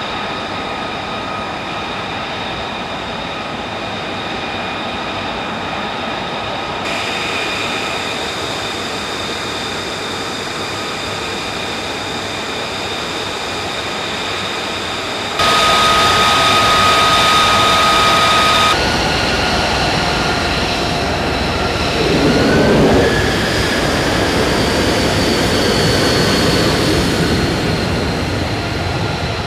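F-35B Lightning II's F135 turbofan engine running on the ground: a steady jet whine made of several high tones over a rushing roar. It jumps abruptly in level and tone a few times. A little past two-thirds of the way through, one tone rises in pitch and a deeper rumble swells.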